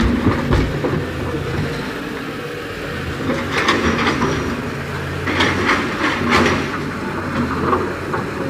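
JCB 3DX backhoe loader's diesel engine running steadily, with several bouts of clanking and rattling, the loudest a little past the middle, as it works.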